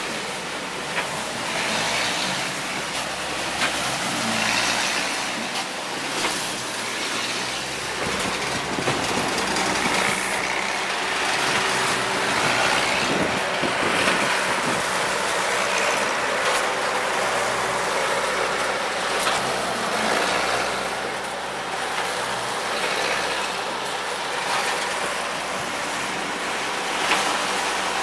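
Engine-driven machinery running steadily: a constant, even noise with a few faint clicks.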